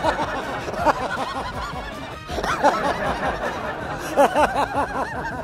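Two men laughing together in bouts of chuckles, with background music underneath.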